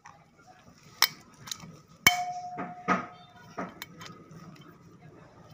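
Metal tools and parts clinking and clanking in a series of sharp knocks, about six in all. The loudest, about two seconds in, leaves a short ringing tone.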